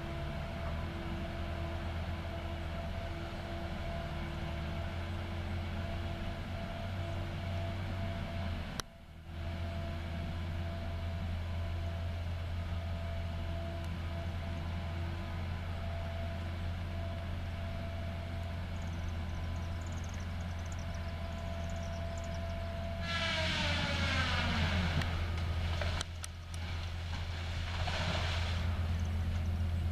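Caterpillar 573C feller buncher running steadily with its saw head whining at a constant pitch. Near the end, a harsh cutting noise breaks in as the saw bites into an oak and its whine drops sharply in pitch. A second shorter burst of cutting noise follows.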